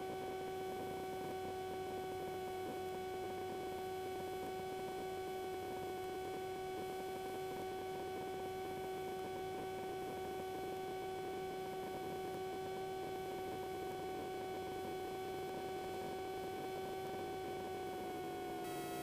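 Engine and propeller of a Rider MD3 ultralight aircraft droning steadily on final approach, heard through the cockpit audio feed as an even, pitched hum. Its pitch dips slightly near the end.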